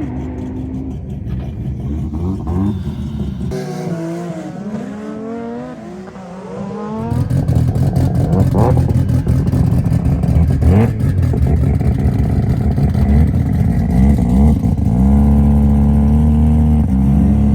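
Performance car engines revving and accelerating, their pitch rising and falling through gear changes. About seven seconds in, a much louder engine takes over, and near the end it holds a steady high rev.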